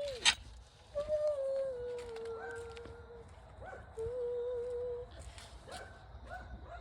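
A dog whining in long, wavering drawn-out tones broken by short rising yelps, with one sharp click just after the start.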